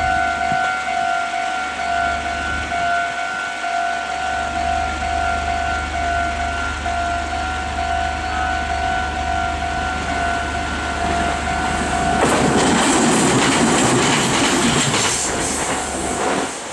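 Railway level crossing's electronic warning bell ringing in a steady repeated ding; about twelve seconds in, a Meitetsu Takehana Line train passes over the crossing with a loud rush of wheel and rail noise for about four seconds, drowning the bell.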